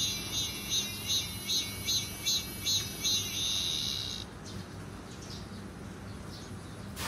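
An insect calling in high-pitched pulses, about two or three a second, ending in a short steady buzz that stops about four seconds in. A single click near the end.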